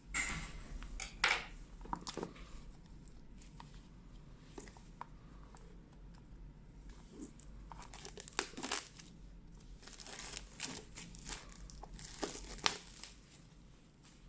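Plastic packaging crinkling and tearing as a boxed phone is unwrapped, in irregular crackly spells: one at the start and a longer one from about halfway to near the end.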